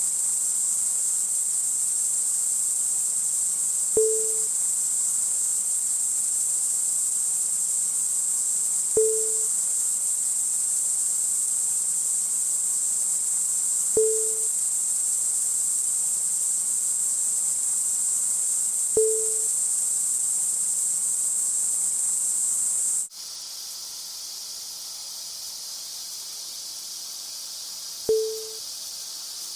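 A thin mechanical bearing giving off a steady, high-pitched whining hiss, with a short click and low blip every five seconds. About 23 seconds in it cuts off sharply and a quieter, broader hiss takes over.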